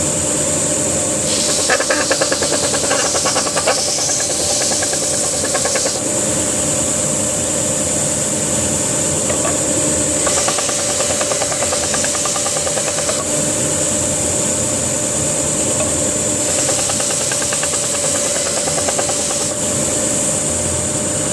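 Belt sander running steadily over the hum of a dust collector. An oak box is pressed to the sanding belt in three spells of a few seconds each, adding a brighter sanding hiss.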